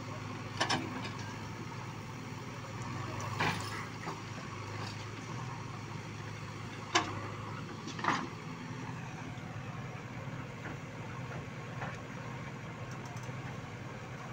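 Diesel engines of two JCB 3DX Eco Xpert backhoe loaders running steadily while they dig and load soil, with a few short sharp knocks from the buckets at work, the loudest about seven seconds in.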